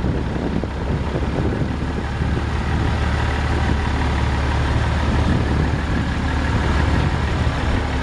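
Ford 7.8L six-cylinder diesel engine of a 1988 Ford L8000 dump truck running steadily with a deep low hum as the truck drives slowly closer, growing a little louder.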